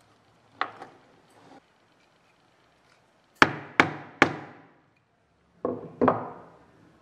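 A metal rivet setter struck with a hammer to set a rivet through a leather strap. There is a light knock early on, then three sharp blows in quick succession, then two more after a short pause.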